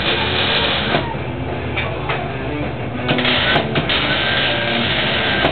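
Arc welding on steel: a MIG welding gun's arc crackling steadily as a weld bead is laid.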